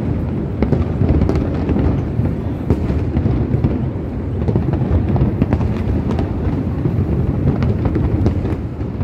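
Fireworks display going off: a continuous low rumble of shell bursts with many sharp pops and crackles throughout.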